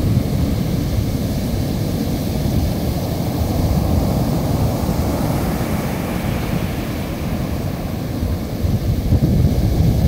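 Heavy surf breaking offshore and washing up a sandy beach in a steady rush, with wind rumbling on the microphone that grows gustier near the end.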